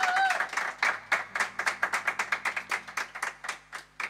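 A few people clapping in applause at the end of a song, the claps separate and even, thinning out and getting quieter toward the end. A short held whoop sounds at the very start.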